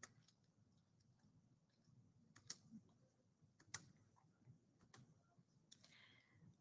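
Near silence with faint, irregular clicks of computer keys.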